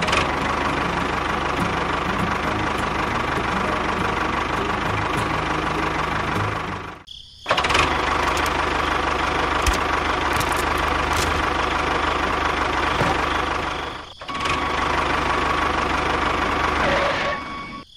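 A DIY mini tractor's motor running steadily as the tractor drives and pushes through sand. The sound breaks off briefly twice, about a third and two-thirds of the way through.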